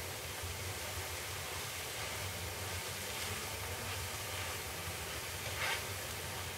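Crepe frying in butter in a non-stick pan: a steady, faint sizzle, with a short scrape of a spatula against the pan about five and a half seconds in.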